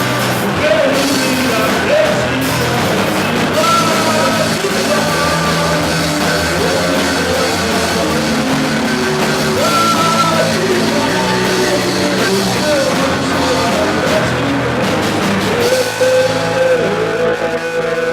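A live rock band playing a song with sung vocals, drum kit and electric guitar. Near the end the full band drops away, leaving a held guitar tone ringing on.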